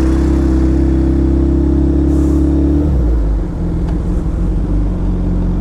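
Suzuki Hayabusa's inline four-cylinder engine running at a steady note, which drops and turns rougher about three seconds in.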